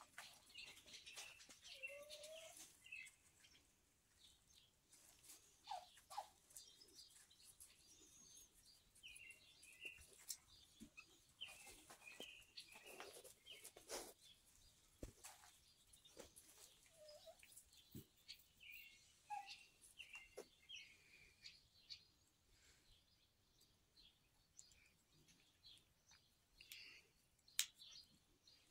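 Faint, scattered high peeps from a young duck about ten weeks old, still with a duckling's voice, mixed with light clicks and rustles in straw bedding.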